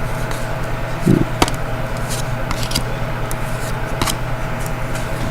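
Trading cards being handled and slid through the hands, with a few faint clicks and a soft thump over a steady low background hum.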